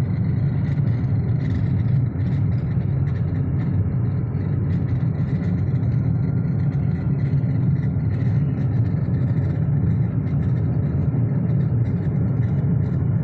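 Car engine running steadily, with a faint irregular ticking or rattling: the strange noise coming from inside the car's dashboard.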